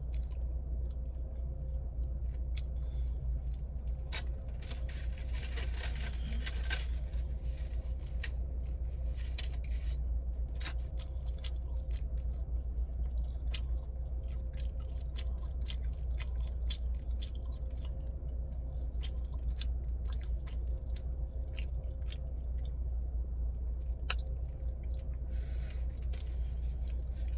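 A person chewing a sub sandwich close to the microphone, with many small wet mouth clicks and crunches, and a stretch of rustling about four to seven seconds in. A steady low hum runs underneath.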